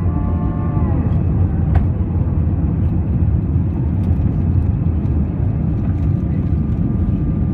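Airbus A320 engines and airflow heard from inside the cabin as a loud, steady low roar. About a second in, a set of engine tones falls in pitch.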